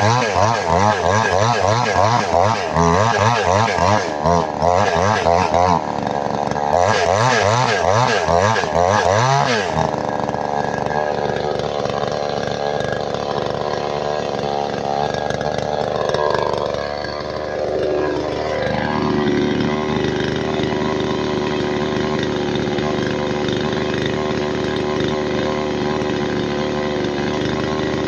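Chainsaw engine running loudly, being used to cut wood. For about the first ten seconds its speed rises and falls rapidly and unevenly, then it settles into a steadier run, with a brief dip in pitch and level about two-thirds of the way through.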